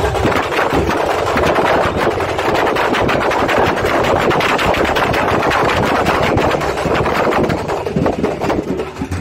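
Loud, fast drumming from a procession drum band: a dense, unbroken stream of sharp beats that thins out slightly near the end.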